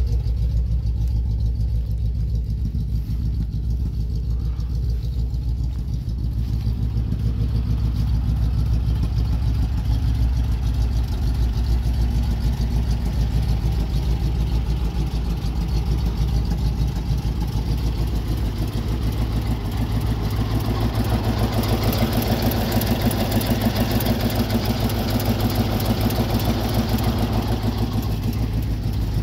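GAZ-53 truck's V8 petrol engine idling steadily. About two-thirds of the way in, a louder, rougher noise joins it.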